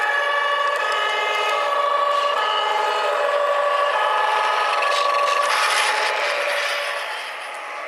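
Several two-tone fire engine sirens sounding at once and out of step, each stepping back and forth between two pitches. Under them runs the scraping of model truck tyres over wood chips, with a short rush of noise about six seconds in.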